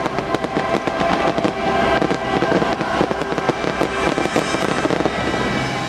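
Fireworks crackling and popping in a rapid, irregular stream, over a sustained musical chord.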